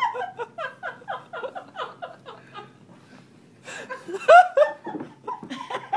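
An elderly woman laughing: a run of quick rhythmic chuckles over the first two seconds that tails off, then a louder burst of laughter about four seconds in.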